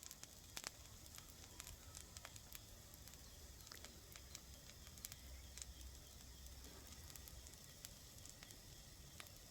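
Faint sizzling with scattered irregular crackles and pops: food frying in a pan on a gas camp stove.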